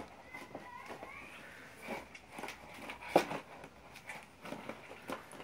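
A puppy mouthing and moving a plastic milk crate: soft scrapes and a few sharp plastic knocks, the clearest about three seconds in.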